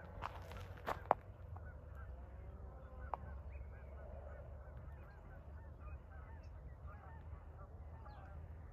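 A flock of birds calling, many short honking calls overlapping throughout, over a low steady rumble. A few sharp clicks come in the first second and another about three seconds in.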